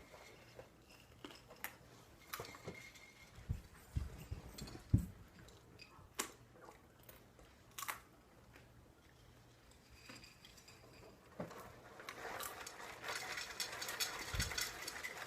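People eating cereal: scattered small clicks and knocks of spoons against bowls, a few low thumps about four to five seconds in, and a denser clatter and rustle over the last few seconds.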